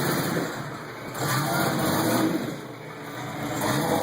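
1994 Jeep Cherokee's engine revving up and easing off in swells, twice then again near the end, as the Jeep crawls over rocks on a steep trail.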